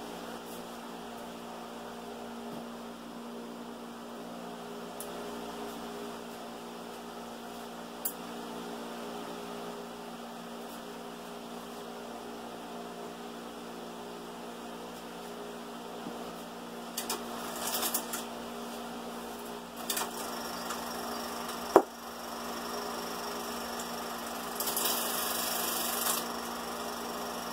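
Film projector running with a steady mechanical hum, broken by a couple of sharp clicks and a few short bursts of rattling noise.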